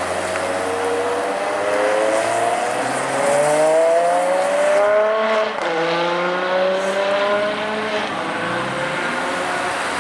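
Ferrari 599 GTO's naturally aspirated 6.0-litre V12 accelerating hard, its note rising steadily with the revs. It drops sharply on an upshift about five and a half seconds in, then climbs again.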